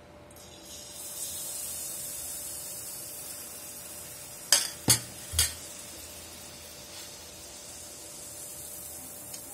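Rava appam batter frying in hot oil in a kadai: a steady sizzle that starts about a second in as the batter goes into the oil. Three sharp metal clinks of a utensil against the pan come about halfway through.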